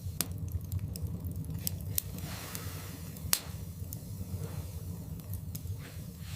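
Wood fire crackling in a fireplace: scattered sharp pops, the loudest a little past three seconds in, over a steady low rumble and a soft hiss.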